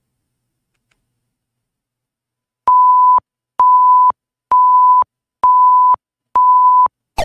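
Countdown timer sound effect: five identical steady beeps, each about half a second long and just under a second apart, marking off a five-second answer time.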